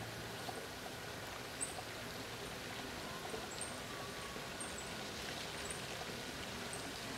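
Lake water lapping gently at the shore as a steady trickling wash, with faint, short high chirps repeating about once a second, often in pairs.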